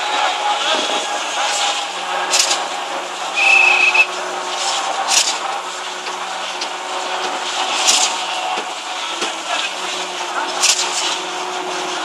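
A truck-mounted concrete pump runs with a steady engine hum. Its pumping comes through as a regular hissing surge about every 2.7 seconds as concrete is pushed through the delivery hose. A brief high whistle-like tone sounds about three and a half seconds in.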